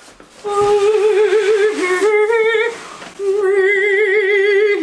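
A woman singing long wordless held notes with wide vibrato, in two phrases with a short break about three seconds in.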